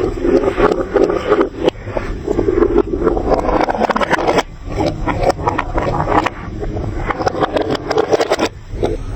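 Glass marbles rolling down plastic building-block marble run tracks with a steady rumble, clattering and clicking against the pieces in quick succession, with brief lulls about halfway and near the end.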